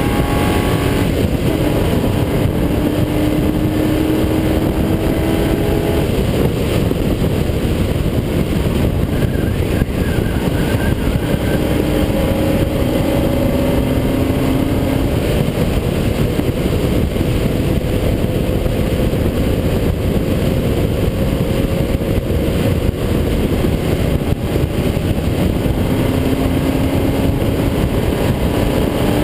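Onboard sound of a vehicle at speed on a race track: a steady rush of wind and road noise, with a fainter engine note that climbs slowly and drops back a few times.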